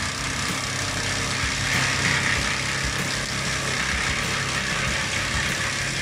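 Vermeer towable brush chipper running steadily at working speed, its engine's hum under a dense grinding hiss as branches are drawn through the infeed and chipped.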